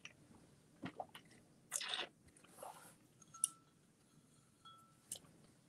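Faint mouth sounds and light clicks and knocks of a person drinking from a ceramic coffee mug and putting it down: a short noisy sip or swallow near two seconds in, and scattered small taps.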